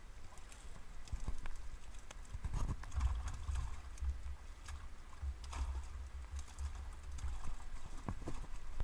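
Live trout being netted and tipped into a white bucket of water: splashing and dripping, with irregular knocks of the net and fish against the bucket, over a low rumble through the middle.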